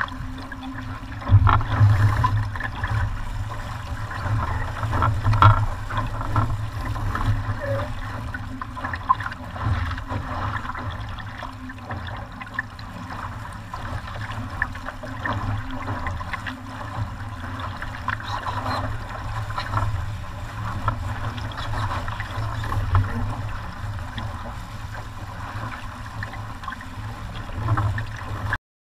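Wind buffeting the camera microphone over water rushing and splashing along the hull of a VX One sportboat sailing fast. The sound cuts off suddenly near the end.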